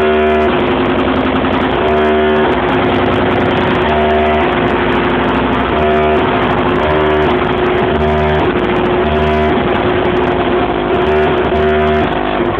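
Loud electronic dance music over a club sound system, distorted by a phone microphone: a heavy, gritty synth bass in phrases that repeat every second or two.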